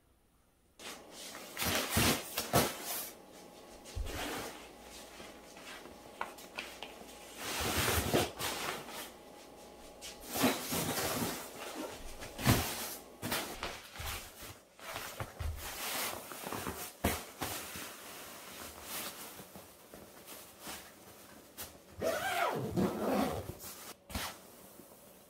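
Irregular rustling of fabric and soft knocks as folded clothes and a zippered fabric storage box are handled and pressed down. The sound starts about a second in.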